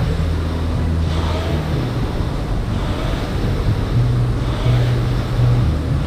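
Air rowing machine's fan flywheel whooshing, swelling and easing with each stroke about every one and a half seconds, with a faint short squeak in each stroke, over a steady low hum.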